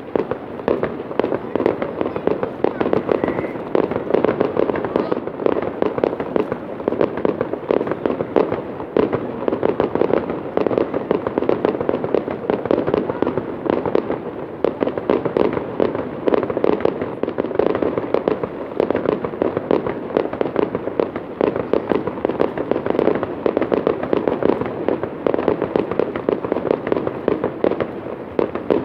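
Fireworks display: a rapid, continuous barrage of bangs and crackles from shells bursting overhead, starting suddenly.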